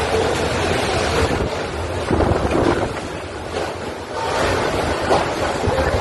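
Strong wind gusting and buffeting the microphone, swelling and easing every couple of seconds.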